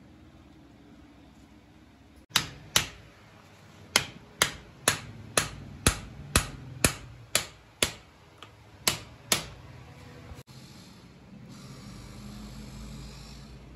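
Submersible pump motor's metal end cap being struck with a hand tool: about a dozen sharp, ringing metal-on-metal taps, roughly two a second, with a short pause before the last two.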